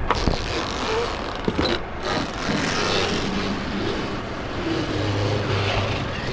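A boat engine running steadily, with a few light knocks in the first two seconds.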